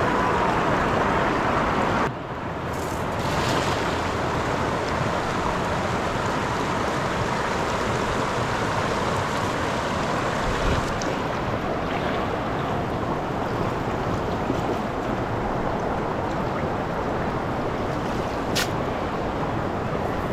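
Rapids of the Mun River: a steady rush of water pouring over rocks. The level dips slightly about two seconds in.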